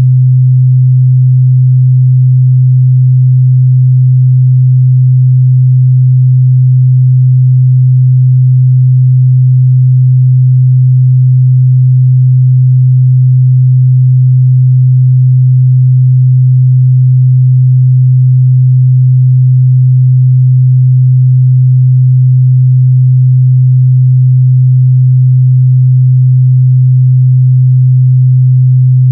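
A steady, loud 128 Hz sine-wave test tone, a single pure low hum held without change, used to check a speaker's or headphone's mid-bass response.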